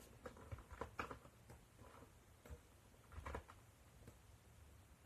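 Near silence: a faint low hum with scattered, irregular small clicks and rustles, a few grouped about a second in and again past three seconds.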